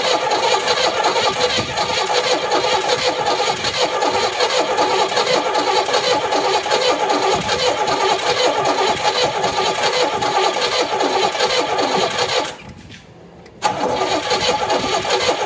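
Starter motor cranking the engine of a long-abandoned Oldsmobile Cutlass Supreme, a steady rhythmic churn for about twelve seconds that stops, then a second, shorter crank near the end, without the engine catching. The owner puts the no-start down to a compression problem and probably an ignition problem as well.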